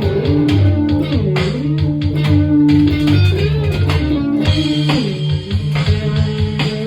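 Band improvising live: electric guitar playing a lead line with notes bent up and down in pitch, over bass guitar.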